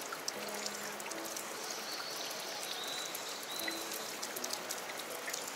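Steady rush of stream water running into a rock pool, with a few faint high chirps over it.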